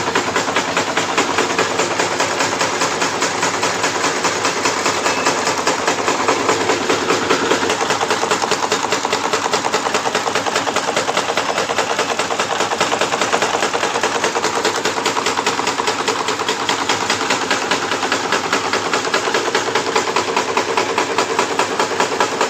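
Wire nail-making machine running at speed: a loud, rapid and even mechanical clatter from its repeated cutting and heading strokes.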